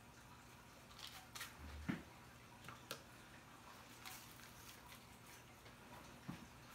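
Faint handling noise of hair foils and a color brush working lightener into hair: a few scattered soft clicks and rustles, the clearest about two seconds in, over a low steady hum.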